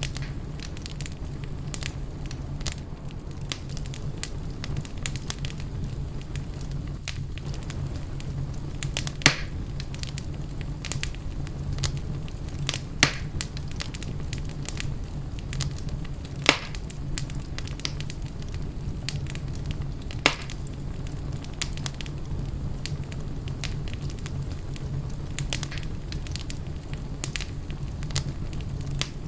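Fireplace fire crackling over a steady low rumble, with many small crackles and four louder pops spread through.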